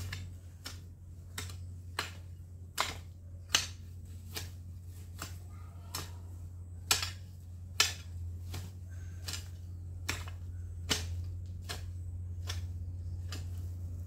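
Rhythmic strikes of a long-handled hand tool chopping into weeds and soil, about one every 0.8 seconds, a few much sharper than the rest, stopping shortly before the end. A steady low hum runs underneath.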